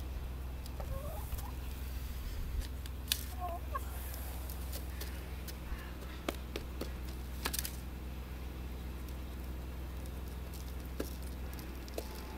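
Hens pecking food from a small plastic tub and the dirt around it, their beaks making irregular sharp taps. A couple of soft clucks come early on.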